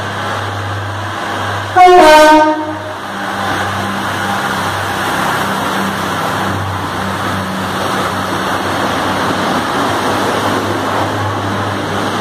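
Pacer diesel railbus running into an underground station, sounding a short loud horn blast about two seconds in. Its underfloor diesel engine hums steadily, and the rumble of the carriages grows as it rolls past, echoing in the tunnel.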